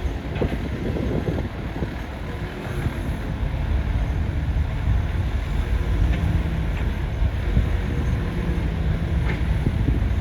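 Excavator engine running steadily under load.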